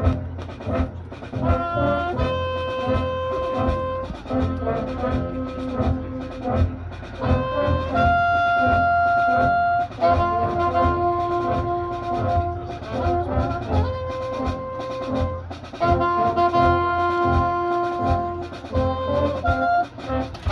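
Marching band brass section playing a series of long held chords, each about two seconds, punctuated by short percussion hits.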